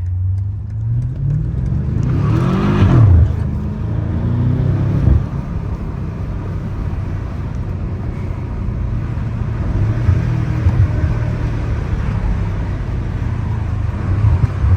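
BMW M5 Competition's twin-turbo V8 revving up hard about two seconds in, dropping back and climbing again before the throttle is lifted about five seconds in, then a steady lower drone of engine and road noise.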